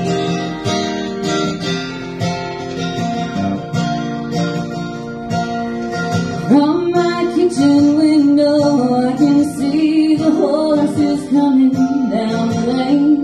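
Acoustic guitar strummed, playing a song's opening chords; about halfway through, a woman's voice comes in singing over it.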